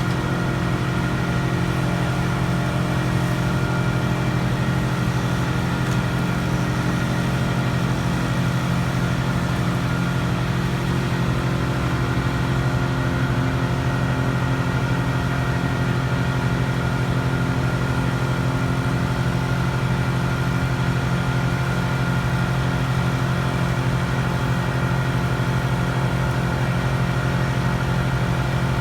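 Crane's engine running at a steady, constant speed: a loud, even drone that holds unchanged throughout.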